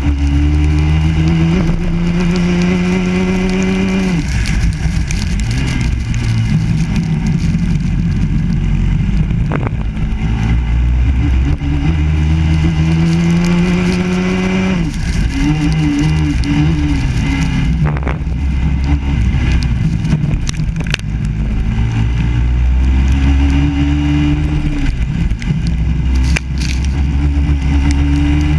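Biland SA250 racing kart's four-stroke engine heard onboard at racing speed, its pitch climbing under full throttle and dropping sharply when the throttle is closed, three times: about four seconds in, near the middle and about five seconds from the end.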